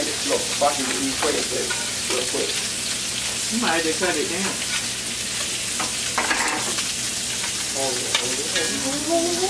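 Crab pieces frying in oil in two skillets, a steady sizzle, with the odd scrape and clink as they are turned over in the pans.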